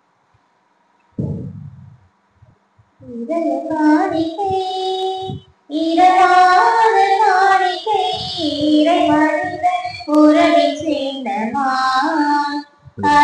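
Offertory hymn sung in Tamil, with high voices carrying a melody, starting about three seconds in after a short low sound. The singing breaks off briefly twice.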